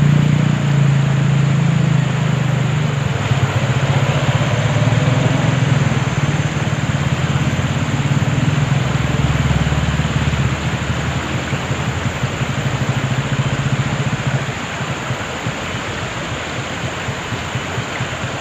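An engine running steadily with a low hum, gradually getting quieter and dropping off further about fourteen seconds in, over a constant rushing noise.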